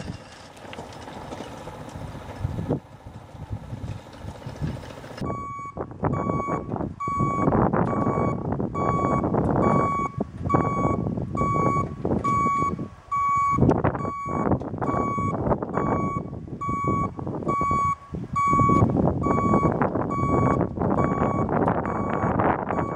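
An automatic livestock feeder's electronic beeper sounding a steady series of short, identical beeps, about two a second, which call the cattle to feed. A loud rushing noise rises and falls underneath the beeps. Before the beeping starts, about five seconds in, the feeder's dispensing mechanism runs with a steady mechanical noise.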